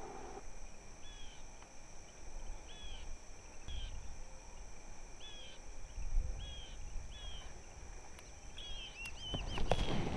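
Steady high-pitched insect drone with a bird repeating a short arched call note about once a second; near the end the calls come faster over some rustling.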